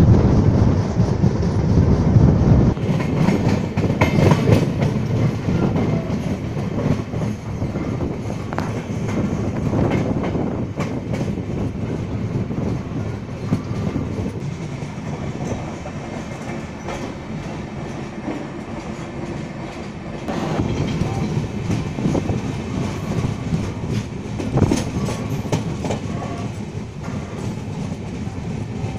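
LHB passenger coaches of an express train running at speed, heard from the coach door: a steady rumble of wheels on rail with repeated clicks and clacks as the wheels cross rail joints and points. The clatter is louder in the first few seconds, eases off in the middle and picks up again about two-thirds of the way through.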